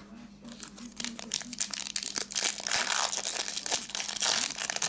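Foil trading-card pack crinkling and tearing as it is ripped open by hand, the crackle building from about a second in and thickest in the second half.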